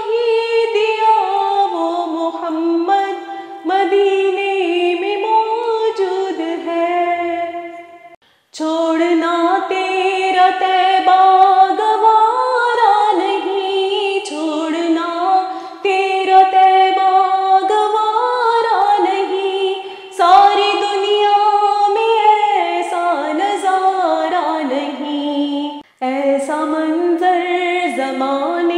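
A woman singing an Urdu naat solo, in long, wavering held lines broken by short pauses for breath: one gap about eight seconds in, others about twenty and twenty-six seconds in.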